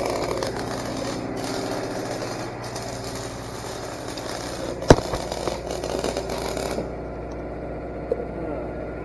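MIG welding arc in short-circuit transfer, crackling steadily on a hot setting, with the engine-drive welder's engine running underneath. There is a sharp pop about five seconds in, and the arc stops a little before seven seconds while the engine carries on.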